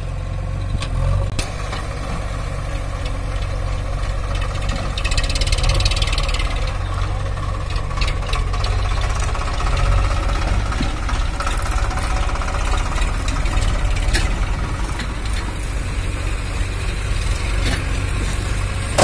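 Eicher 551 tractor's three-cylinder diesel engine running steadily at low speed, a continuous low chugging hum.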